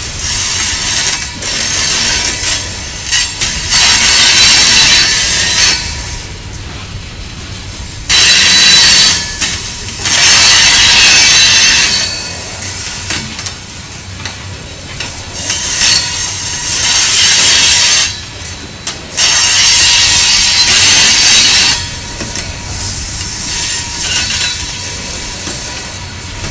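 Loaded rock hopper cars rolling past on steel wheels. The wheels squeal against the rails again and again in loud high-pitched stretches of about two seconds each, over a steady rolling rumble.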